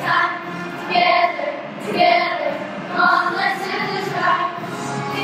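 Children's choir singing together, with a louder sung syllable about once a second.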